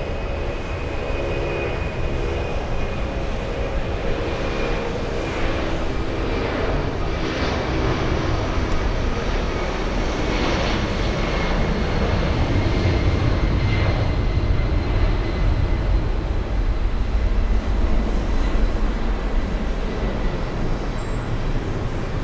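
The four Pratt & Whitney F117 turbofans of a Boeing C-17 Globemaster III at takeoff power, a steady low jet rumble through the takeoff roll and liftoff. It grows louder about halfway through and eases a little near the end as the aircraft climbs away.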